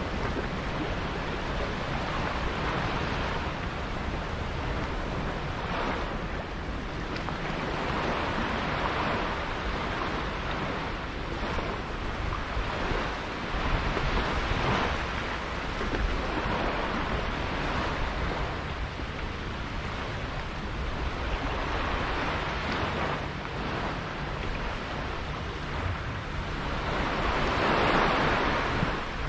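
Wind and water noise aboard a sailboat under way: rushing water surging and easing, over a steady low rumble of wind on the microphone, with the loudest surge near the end.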